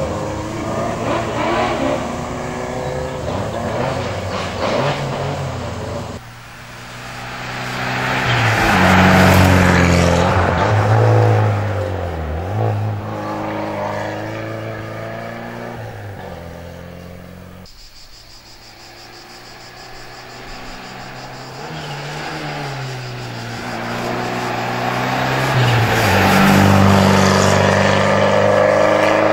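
Small hatchback race car's engine revving hard through slalom chicanes, its pitch climbing and dropping as the driver accelerates, brakes and shifts gear. It gets loud twice as the car passes close by.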